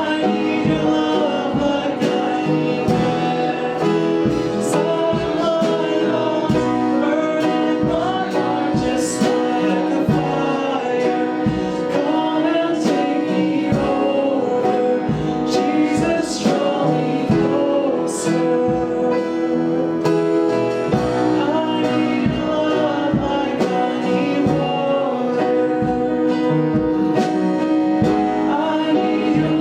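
Worship music: a song with singing and acoustic guitar.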